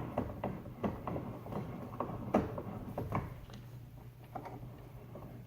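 Bench vise being tightened onto an AC compressor, with a run of light metallic clicks and knocks from the vise and its handle. The knocks come thick for about three seconds, then thin out to a few scattered taps.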